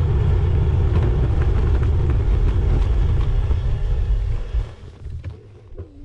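Wind rushing over an action-camera microphone, with road noise, on a road bike being ridden. It makes a steady low rumble that drops away sharply about four and a half seconds in.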